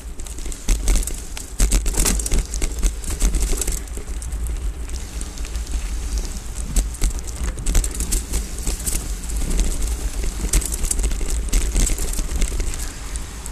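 Hardtail mountain bike riding over a dry dirt singletrack: tyre noise on dirt with frequent rattles and knocks as the bike goes over bumps, and wind rumbling on the microphone.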